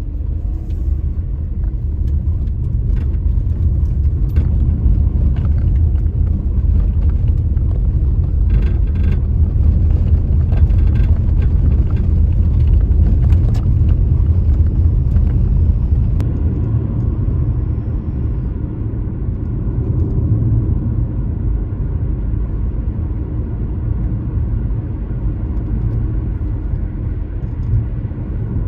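A car's steady low rumble heard from inside the cabin, with a few faint clicks in the middle.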